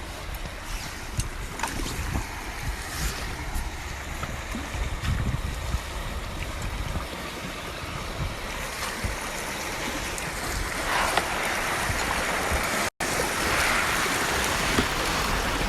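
Rushing river rapids splashing around a small paddled boat, with wind buffeting the microphone and scattered knocks and splashes. The water grows louder and brighter in the last few seconds.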